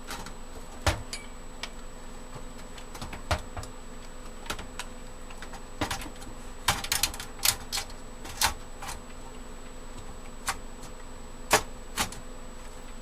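Irregular clicks and knocks of parts and cables being handled inside a metal computer case, a few in quick succession about halfway through, over a steady faint electrical hum.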